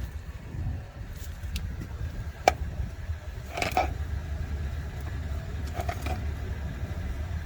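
Metal hand tools clinking a few times: one sharp clink about two and a half seconds in, a pair around four seconds and lighter ones near six seconds, over a steady low rumble.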